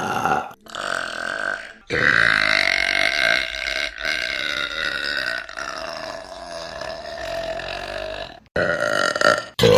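Women burping loudly: two short burps, then one very long, deep burp lasting about six seconds, then another short burp near the end.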